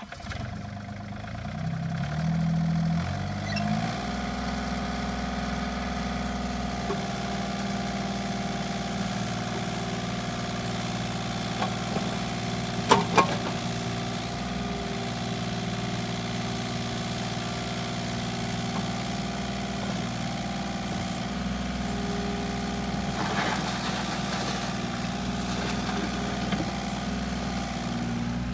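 IHI 35N3 mini excavator's diesel engine running while its hydraulics swing the boom, arm and bucket. The engine note shifts in steps during the first few seconds, then settles to a steady run, with two sharp metallic clanks about halfway through.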